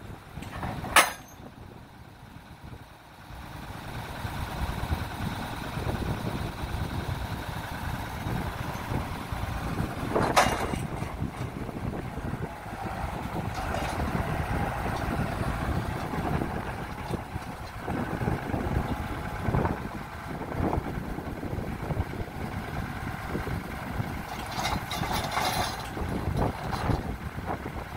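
Morooka MST800 tracked carrier's engine running, getting louder about four seconds in and then holding steady. A sharp knock comes about a second in, a louder knock around ten seconds, and several lighter knocks later on.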